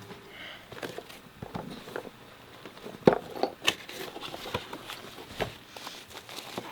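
Handling noises from a camera rig in a metal cage being picked up and moved: scattered light clicks, taps and knocks, with one sharper knock about three seconds in.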